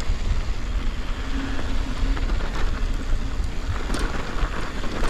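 Mountain bike rolling down a loose, dusty dirt singletrack: tyre noise on the dirt and the bike's rattle, under a steady low rumble of wind buffeting the microphone.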